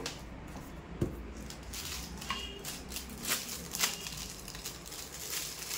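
Clear plastic bag of drone propeller guards being handled and pulled open, crinkling in short irregular bursts. There is a single knock about a second in.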